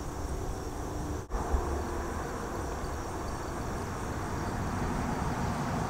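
Steady outdoor background noise, a low rumble with hiss above it, that cuts out for an instant about a second in.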